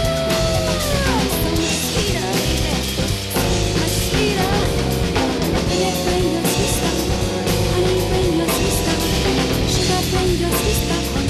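Rock music with drum kit and electric guitar, a held guitar note bending down about a second in.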